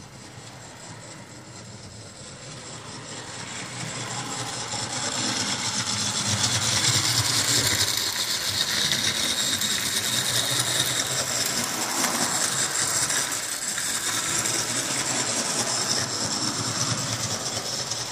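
HO-scale model trains running on the layout's track: the Lionel HO GS4 4-8-4 steam locomotive and other trains, their wheels and motors making a steady rolling rattle over the rails. It grows louder a few seconds in as the train runs near, then holds.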